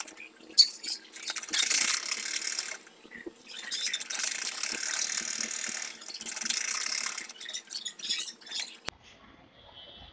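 Sewing machine stitching in two runs, a short one about a second in and a longer one from about four seconds, with a few clicks of the mechanism around them. It stops near the end.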